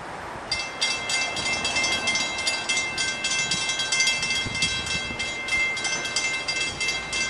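Railroad grade crossing bell starting up about half a second in and ringing in a fast, even rhythm as the crossing signals activate for an approaching train.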